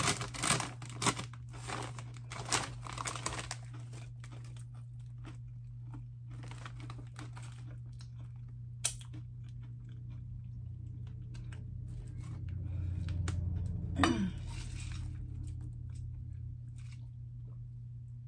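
Crinkly snack-bag packaging rustling as the bag is opened, then close-up crunching and chewing of Cheetos pretzels. The crackling is densest in the first few seconds and thins into scattered crunches.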